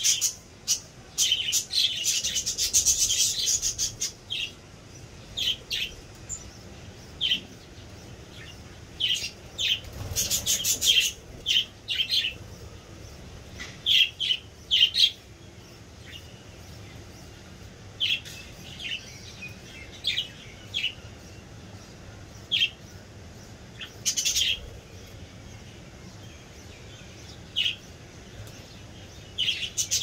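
A flock of budgerigars chirping and chattering: dense, rapid warbling for the first few seconds and again around ten seconds in, then scattered short single chirps.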